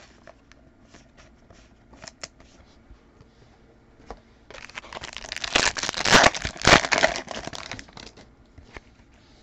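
Trading cards handled with faint ticks, then a few seconds in a pack's wrapper is ripped open and crinkled for about three seconds.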